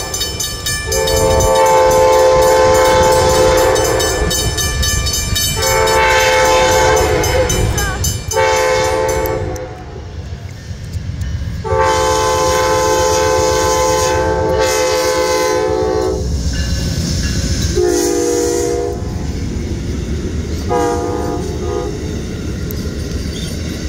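Amtrak Silver Star passenger train's air horn sounding six chord blasts: long, long, short, long, the pattern of the grade-crossing signal, then two shorter blasts. Under the horn runs the low rumble of the train approaching and passing close by.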